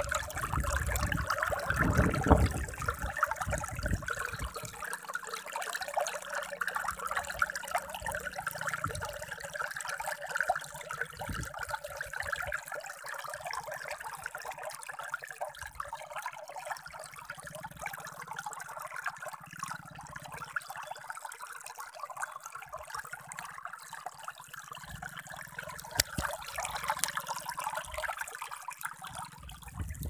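Shallow water trickling steadily along a muddy irrigation ditch, with heavy splashing steps of someone wading through it in the first few seconds and again near the end.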